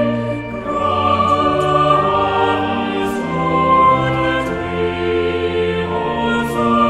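Choir singing a hymn with instrumental accompaniment: sustained notes moving in a slow, steady melody.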